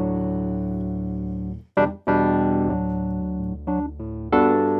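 Electric piano playing held chords that start sharply and slowly fade, broken off briefly about two seconds in and struck again twice more, the last near the end.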